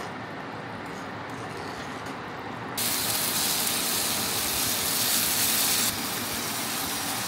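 A pot of pork and onion simmering with a soft steady hiss, then, about three seconds in, marinated pork frying in a hot frying pan with a loud, bright, steady sizzle that eases slightly near the end.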